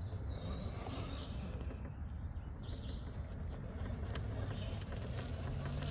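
Electric RC rock crawler's motor and drivetrain running as the truck climbs slowly over rock, with birds chirping a few times.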